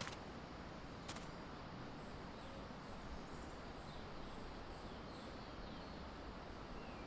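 Faint woodland ambience: a steady low hiss with a high chirp repeated about eight times, roughly two a second, and faint bird twitter. Near the start, a couple of sharp crunches of a boot stepping on dry leaf litter.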